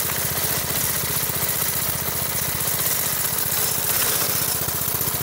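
Small single-cylinder lawn mower engine on a go-kart, freshly started and running steadily with a rapid, even exhaust beat, close to the microphone.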